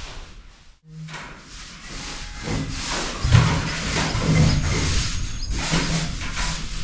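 Paint roller on a long handle being rolled along a wall, a rubbing swish repeated with each stroke, about once a second.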